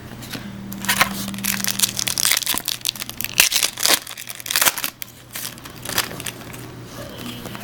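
Foil wrapper of a Topps Chrome card pack crinkling as it is handled and torn open: a dense run of crackles for about four seconds that then thins out.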